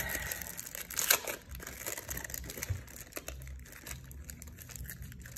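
Paper sheets and plastic wrapping crinkling and rustling as they are handled, in short irregular rustles with a louder crinkle about a second in.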